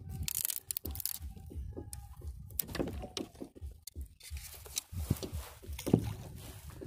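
Dry dead tree branches cracking, snapping and scraping as they are grabbed and pushed aside by hand, in irregular sharp knocks, over a low wind rumble on the microphone.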